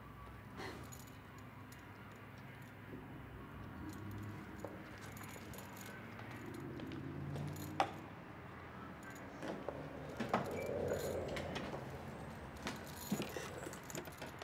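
A handbag's metal chain strap jingling and rattling as a person moves and sits down. A takeaway coffee cup is set down on a wooden table with a sharp knock about eight seconds in.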